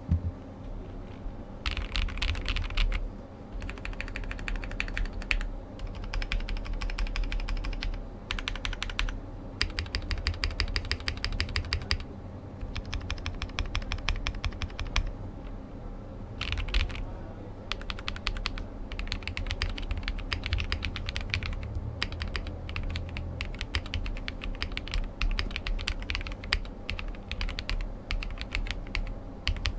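Typing on a Glorious GMMK Pro mechanical keyboard with a POM plate and Cherry-profile PBT keycaps. Fast runs of keystrokes come in bursts of a few seconds with short pauses between them, and each press has a deep bottom-out thud.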